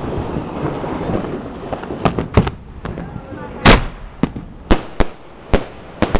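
Anil Fireworks Roller Coaster 3¼-inch sky shot firework going off: a run of about eight sharp bangs starting some two seconds in, the loudest near the middle, as its shots burst in the air.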